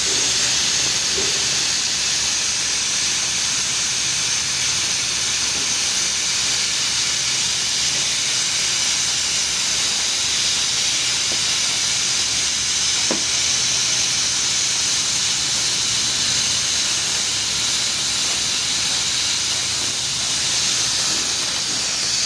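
Oxy-acetylene cutting torch cutting steel, its oxygen jet and flame giving a loud, steady hiss.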